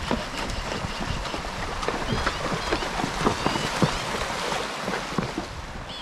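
Horses wading across a shallow, rocky creek: hooves splashing and knocking in the water, with many short splashes over the steady rush of the stream.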